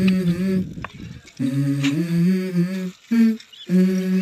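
Background music: a wordless hummed vocal melody of held notes, in short phrases with brief pauses.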